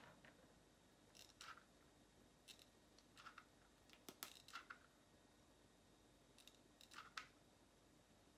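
Faint, short clicks and ticks in small clusters every second or two, from a hot glue gun being worked as glue is run onto a wooden slice.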